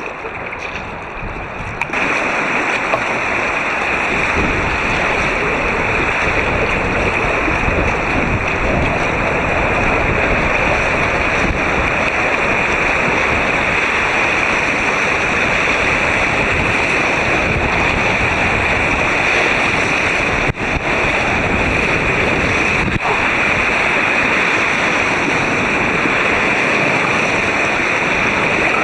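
Steady rush of river water around an inflatable white-water kayak, picked up through a helmet camera's waterproof housing; it grows louder about two seconds in and then holds steady.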